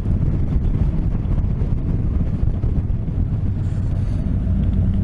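Motorcycle riding noise at road speed: wind rushing over the microphone over the low, steady running of a Honda NC750X's parallel-twin engine.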